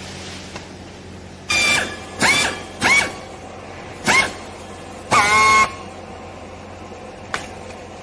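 Handheld strapping tool tensioning green plastic strap around a bale: five short, high-pitched whines, each rising at its start and then holding its pitch, the last and longest about half a second. A single sharp click near the end.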